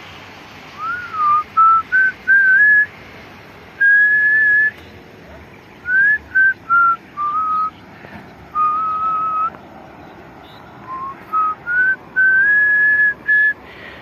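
A person whistling a slow tune: a single clear whistled tone moving through held notes and short slides, phrase by phrase with short pauses between.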